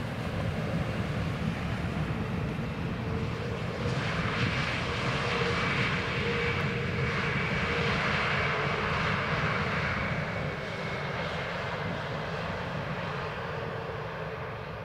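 Jet airliner on its landing approach passing by: engine noise swells about four seconds in, with a high fan whine that slides slightly lower, then fades toward the end, over a steady low rumble.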